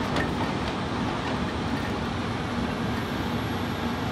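Cat log loader's diesel engine running steadily as its grapple lifts a bundle of logs, an even rumble with a faint hum.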